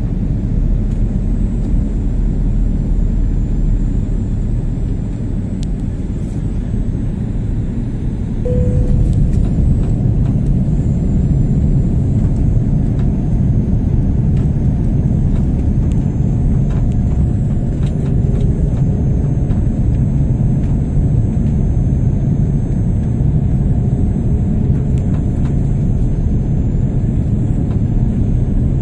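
Steady low rumble of a four-engine jet airliner's engines and airflow heard inside the passenger cabin as the plane descends. It grows a little louder about eight seconds in.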